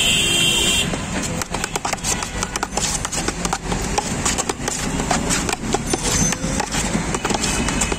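Metal spoon and hand knocking and scraping against a steel bowl while a thick mashed-potato mixture is stirred, a rapid, irregular clatter of clicks. A vehicle horn sounds under the first second, over a steady hum of street traffic.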